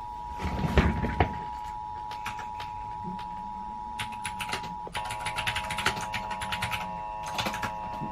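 Emergency Alert System two-tone attention signal (853 and 960 Hz) holding steady. About five seconds in, further steady tones join it as a denser chord. Bursts of rapid sharp clicks sound over the tones near the start and in the second half.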